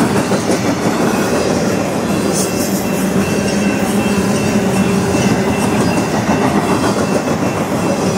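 BNSF double-stack intermodal freight cars rolling past close by: a loud, steady rumble of steel wheels on rail with scattered clacks and a faint thin high wheel squeal.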